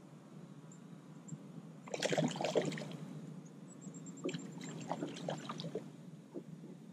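A hooked bass splashing at the surface beside the boat: a burst of splashes about two seconds in, then scattered smaller splashes and drips.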